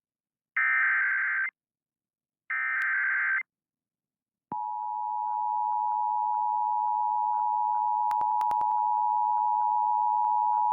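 Emergency Alert System broadcast tones: two short bursts of SAME header data tones about a second apart, then the steady two-tone EAS attention signal, which starts about four and a half seconds in and holds, slowly growing louder.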